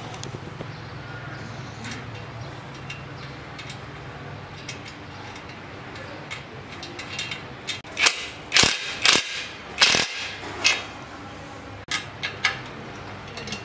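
Metal clicks and clinks of hand work fitting a bolt-on reverse gearbox and universal-joint drive shaft to a motorcycle engine, with a run of louder, sharp metallic clacks about eight to eleven seconds in.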